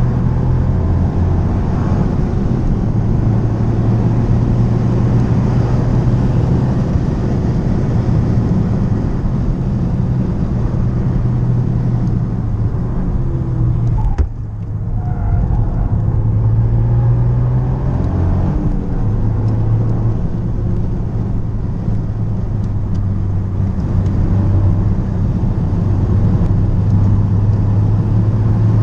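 Toyota GR Yaris's turbocharged three-cylinder engine with a Ragazzon exhaust, running hard under load and heard from inside the cabin. About halfway through the engine note suddenly drops away for a moment, then builds again; the pitch shifts once more a few seconds later.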